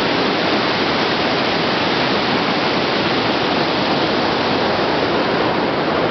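The Rhine Falls, a wide river waterfall, raging: a loud, steady, dense rush of falling water with no let-up.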